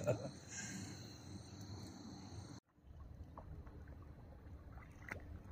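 Faint outdoor ambience: a low rumble and hiss with a steady high thin whine, all cut off abruptly about halfway through, after which only the low rumble returns.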